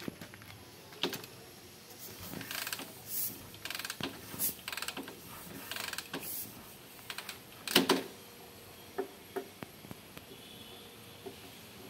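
Royal Enfield Bullet 350 single-cylinder engine being kicked over without firing: irregular clicks, clatters and clunks of the kickstart lever and engine turning, loudest once about eight seconds in.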